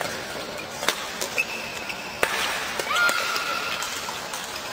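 Badminton rally: rackets striking the shuttlecock with several sharp cracks, and court shoes squeaking on the floor, one longer squeak about three seconds in.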